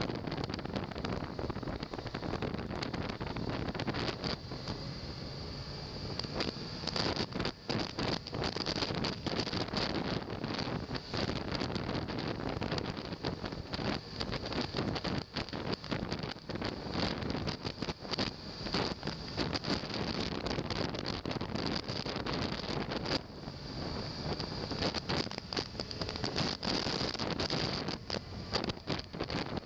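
Wind buffeting the microphone of a motorcycle-mounted camera at riding speed, a steady loud rush with rapid gusty fluctuations over the motorcycle's running and road noise.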